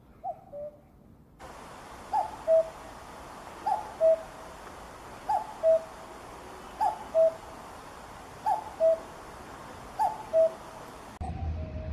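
Common cuckoo calling its two-note "cuck-oo", a higher note falling to a lower one, repeated about seven times at a steady pace of roughly one call every second and a half, over a light background hiss.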